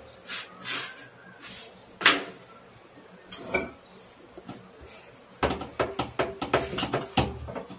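Wooden rolling board (chakla) knocking and clattering against the counter as a roti is rolled out on it with a rolling pin, in a rapid run of knocks from about five seconds in, after a few single clicks. The noise comes from a missing corner on the board.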